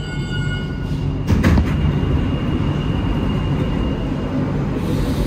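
Alstom NS-93 rubber-tyred metro train slowing to its stop at a station, heard from inside the car: a steady rumble with a thin electrical whine that fades away, and a sharp knock about a second and a half in. A hiss begins near the end.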